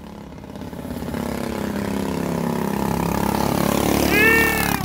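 Mini bike's small engine running as it rides toward and past, getting steadily louder as it nears. A brief shout rises over it near the end.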